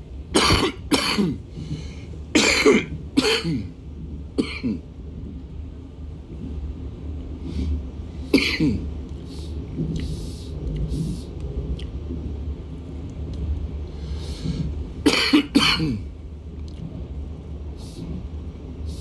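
A man's coughing fit: five harsh coughs in the first few seconds, one more about eight seconds in, and two in quick succession about fifteen seconds in. Under them runs the steady low rumble of a moving electric commuter train.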